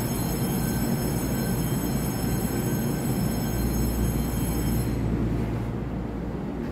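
Electric multiple-unit train rumbling along the track in an underground station, with a steady high whine that stops about five seconds in.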